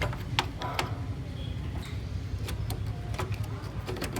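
Canon MF3010 printer's drive motor running, its gear train clicking irregularly over a low steady hum. The worn teeth of the main drive gear are slipping instead of turning the train, which is the cause of the printer's noise.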